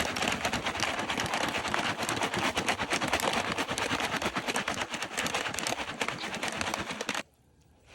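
Popcorn kernels popping rapidly in a Jiffy Pop foil pan over a small camp stove, a dense, fast crackle of many pops that stops abruptly about seven seconds in.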